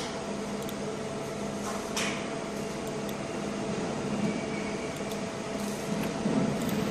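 Steady electrical hum of a laser marking machine with a rotary attachment running, with a short click about two seconds in.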